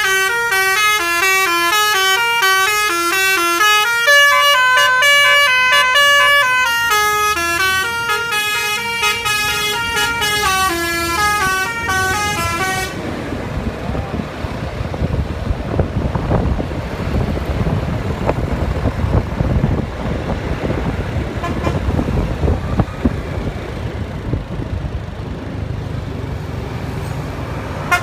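A bus's telolet horn, several trumpets sounding together in chords, plays a quick melody of stepped notes for about thirteen seconds. Then the horn stops and only the bus engine and road noise go on, a low rumble.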